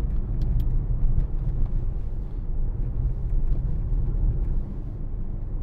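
Mercedes-AMG GLC63 S's 4.0-litre twin-turbo V8 running on the move, a steady low drone of engine, exhaust and road noise with no revving.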